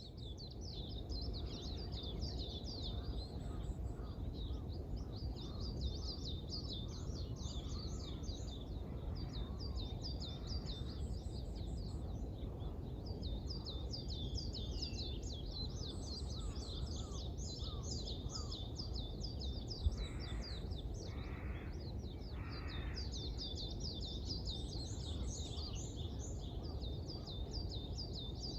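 Dawn chorus of many small birds chirping rapidly and continuously, with three harsh crow caws about two-thirds of the way through. A steady low rumble of background noise runs beneath.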